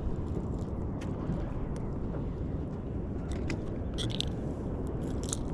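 Steady low rumble of wind and water around a small fishing boat, with scattered light clicks and taps and a brighter cluster of them about four seconds in.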